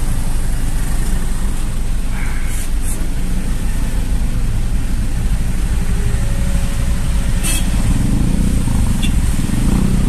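Road traffic heard from inside a vehicle crawling in dense city traffic: a steady low rumble of engines, with motorcycles close by and a couple of brief clicks.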